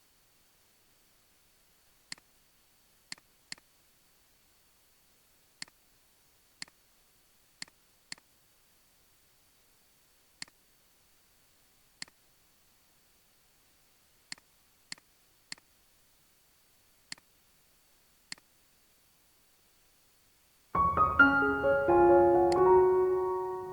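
Single computer-mouse clicks every second or two over near silence, then piano music starting near the end.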